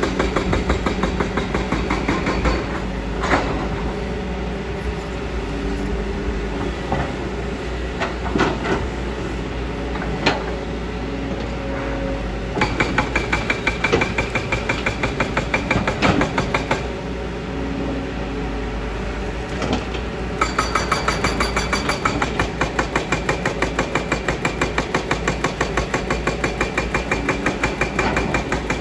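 Kobelco excavator's diesel engine running steadily, with several sharp metal knocks in the first half. Twice a fast, even clatter of several beats a second sets in, the second time about two-thirds of the way in and running on.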